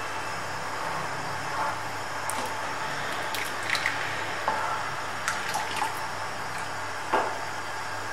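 Custard being stirred in a pan with a wooden spatula and more custard paste spooned in from a bowl, over a steady hiss. A few short clinks and scrapes of spoon on bowl and pan are heard, the loudest about seven seconds in.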